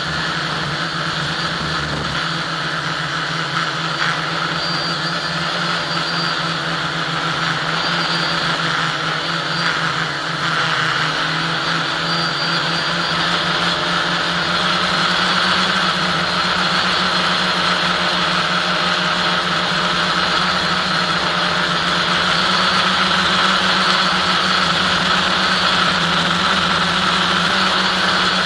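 An FPV model aircraft's motor and propeller running steadily, heard from the onboard camera with airflow noise. The drone holds its pitch and gets a little louder in the second half.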